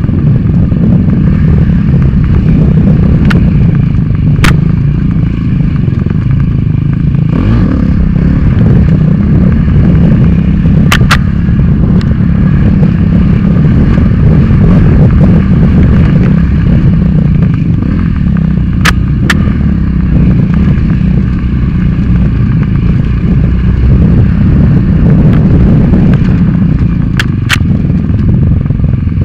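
Dirt bike engine running hard, loud and close, with wind and trail noise over a helmet-mounted microphone. A few sharp clicks stand out over the engine sound.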